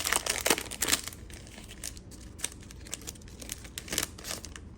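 Trading card pack's wrapper crinkling as it is torn open: dense crinkling for about the first second, then sparser, quieter rustles and clicks.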